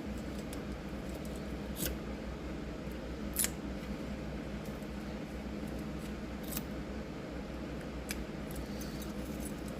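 Keys and a small car lock cylinder being handled: about four short, sharp metallic clicks, the loudest a few seconds in, over a low steady hum.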